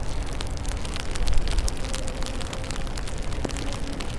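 Rain heard while riding: many sharp, scattered raindrop ticks close to the microphone over a steady low rumble of wind and wet-road noise.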